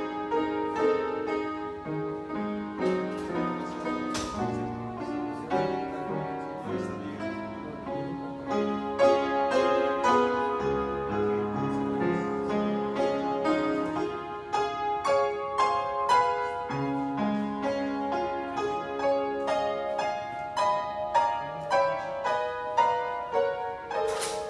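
Acoustic upright piano played by hand: a lively piece with quick runs of notes and chords, unbroken throughout.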